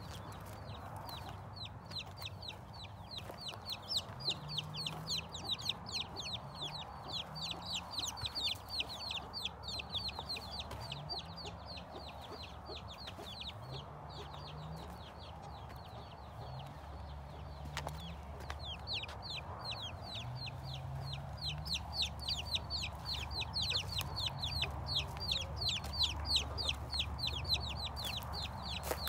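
Chickens clucking, with a fast, evenly spaced run of high chirps that stops briefly about halfway through and then starts again.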